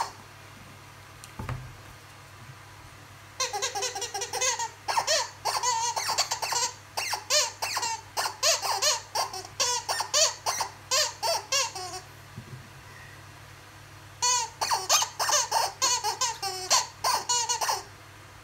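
Rubber squeaky dog toy squeaking rapidly, several squeaks a second, as a blue-and-gold macaw bites and squeezes it. It comes in two long runs with a pause of about two seconds between them.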